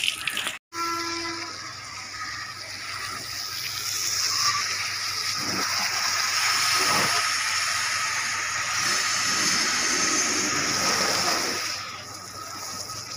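Water from a hose spraying onto a car's body and the wet tiled ground: a steady hiss that eases off near the end.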